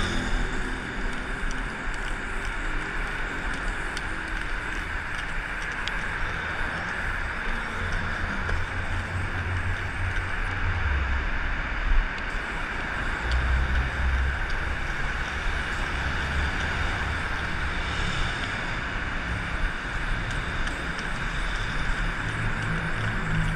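Steady traffic noise rumbling under a concrete road overpass, with an aerosol spray-paint can hissing at times as a red graffiti tag is painted onto the pillar. A single brief thump stands out about halfway through.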